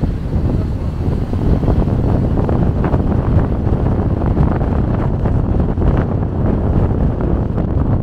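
Loud wind buffeting the microphone: a rough, gusty rumble, strongest in the low end.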